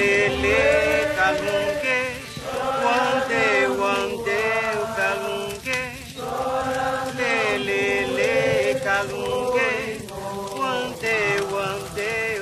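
A slow chant sung in long held phrases with wavering vibrato, broken by short breaths.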